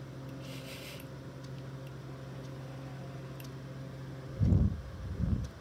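Two loud gusts of breath blowing onto the microphone near the end, from exhaling a drag on a rewicked coil vape, over a steady low hum and faint ticking; a short hiss about half a second in.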